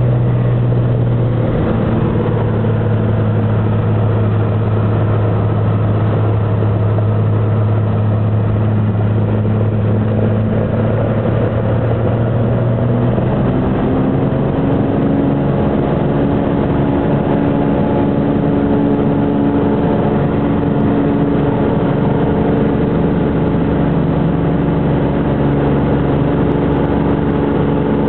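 Ski plane's engine and propeller running loudly, heard from inside the cabin during the takeoff run on the glacier snow. About halfway through, the tone shifts as the engine and propeller change pitch.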